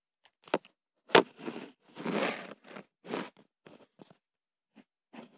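Handling noises from hands working at the floor, likely around a plastic slime container and cover: a sharp click about a second in, then several short rustling scrapes and a few light ticks.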